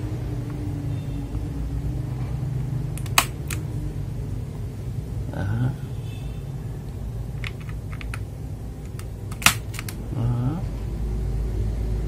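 Two sharp plastic clicks about six seconds apart, with a few fainter ticks between: TTC Tiger mechanical keyboard switches being pressed into a hot-swap keyboard's sockets. A steady low rumble runs underneath.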